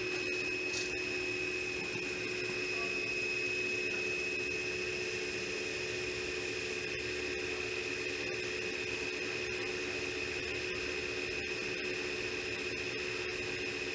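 CNC pipe-drilling machine running: a steady high-pitched whine from a spinning motor, with a lower hum and a hiss underneath.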